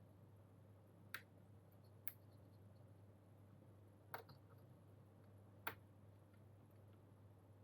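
Four faint, sharp clicks one to two seconds apart over a low steady hum, from Gateron Yellow mechanical keyboard switches being handled.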